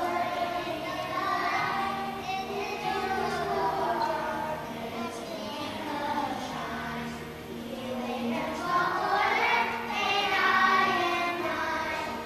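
Young children singing together as a group, with musical accompaniment.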